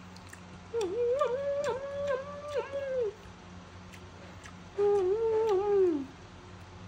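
Baby macaque giving wavering whimpering coo calls, strung together from short rising-and-falling notes, in two bouts: a longer one starting under a second in and a shorter one about five seconds in. A faint steady hum lies underneath.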